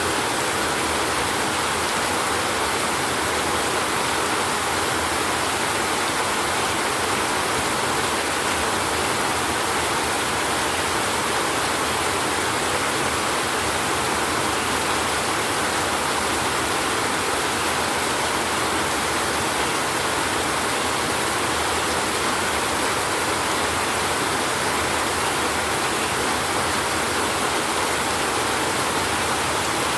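Steady rain, an even unbroken hiss with no thunder claps.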